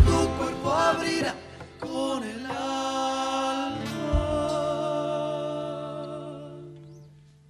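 A rock-folk band's song: a voice sings a wavering line, then a long held note rings over a sustained low note and fades almost away near the end, with a single thump about four seconds in.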